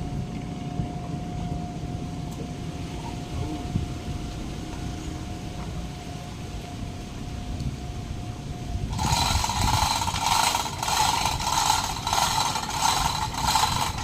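A low engine rumble with a faint steady whine. About nine seconds in it is overtaken by louder rhythmic scraping strokes, about one and a half a second, as a tool works the boat's hull.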